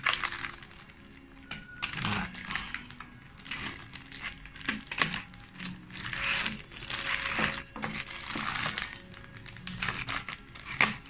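Clear plastic packaging bags crinkling and rustling as they are handled, with light clicks of the plastic Beyblade parts inside. Near the end a utility knife cuts into the plastic.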